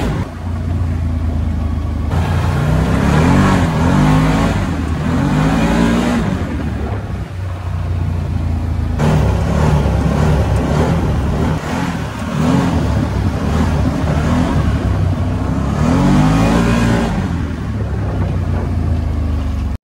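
A vehicle's engine running with a steady low drone, its revs rising and falling several times.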